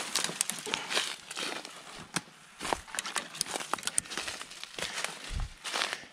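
Footsteps pushing through dry brush on a woodland trail: dead leaves and twigs crunching and crackling and branches brushing past in irregular snaps and swishes, with a dull low bump about five seconds in.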